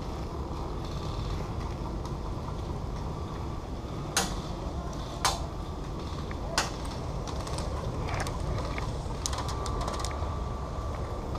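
Three sharp cracks, each about a second apart, near the middle over a steady low background noise, followed by a few smaller clicks and a faint thin squeak near the end.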